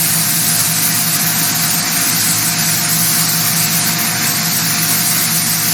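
Sun Joe SPX3500 electric pressure washer running steadily, its motor and pump humming under the constant hiss of the high-pressure water spray.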